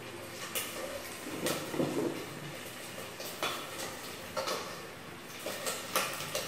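Scattered light clicks and knocks of kitchen containers being handled, including a jar with a green lid.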